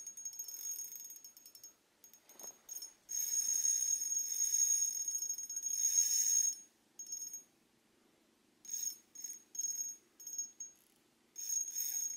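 Spinning reel being cranked to bring in a hooked fish: a high-pitched whirr from the reel, with one long spell of about three seconds, then several short spurts near the end.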